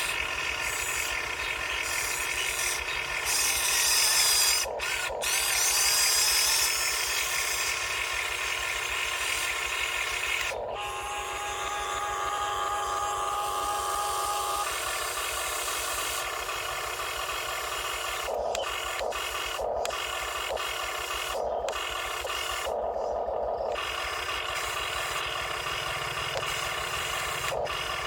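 A 1/20-scale radio-controlled CAT 330DL excavator working, its electric motors and servos whirring while the metal arm and tracks rub and grind. The sound cuts off and changes abruptly several times, with a steady whine for a few seconds near the middle.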